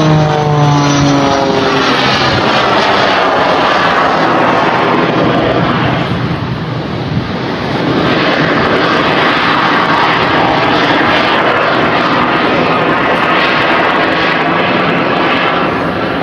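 Propeller aircraft engines flying past low and loud. The engine note drops in pitch in the first two seconds as one passes, and the sound eases briefly before a second loud pass from about eight seconds in.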